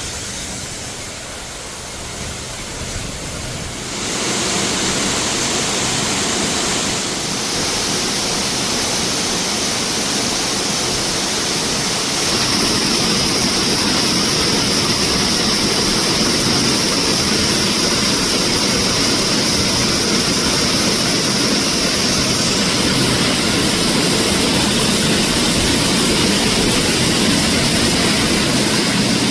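Waterfall pouring steadily into a cave, a dense hiss of falling water. It gets louder in steps, about four seconds in and again about twelve seconds in.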